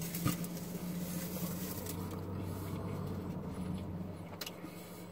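A steady low hum inside a car cabin, its lower note dropping out near the end, with a faint hiss and a few soft clicks as a foil-wrapped taco is handled and eaten.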